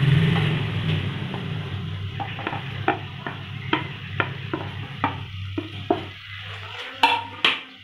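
A spoon scraping and tapping against a plate and the rim of a cooking pan as crumbled boiled potatoes are pushed into spinach gravy: a run of light clicks, with two louder knocks near the end, over a low steady hum.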